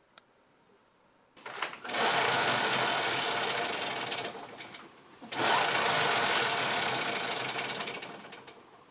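A machine running noisily in two bursts of about three seconds each. Each burst starts suddenly and fades away.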